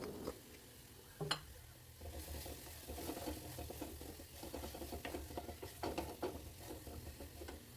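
A spatula stirring and scraping spice masala paste as it fries in a pan, with a single knock about a second in.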